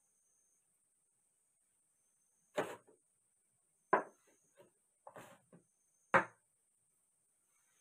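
Plastic chess pieces being picked up and set down on a wooden folding chessboard: four sharp knocks about a second apart, some followed by smaller clicks as pieces are slid or shuffled.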